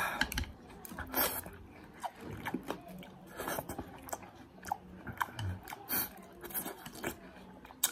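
A person biting and chewing cubes of watermelon, with irregular crunches.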